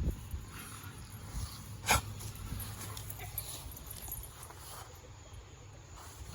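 Border collie playing on a backyard playground, with one sharp knock about two seconds in.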